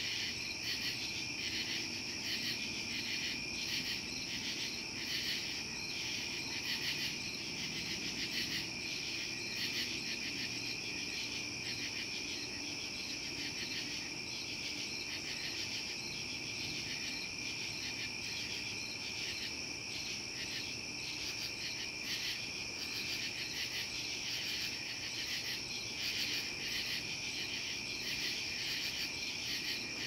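Crickets chirping in a steady night chorus: a continuous high trill with a fast pulsing running through it.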